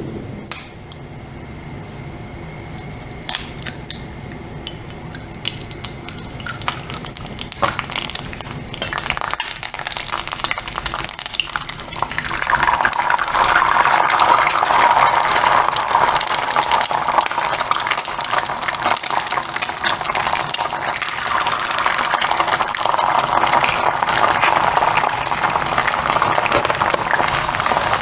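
Scattered clicks and taps of cookware on a gas stove, then about twelve seconds in, eggs frying in hot oil in a stainless steel pan set up a loud, steady sizzling crackle.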